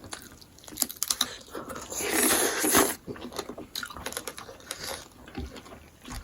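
Close-up eating sounds: chewing and lip smacks with small wet clicks, as smoked pork is eaten. About two seconds in there is a louder, noisier burst of almost a second.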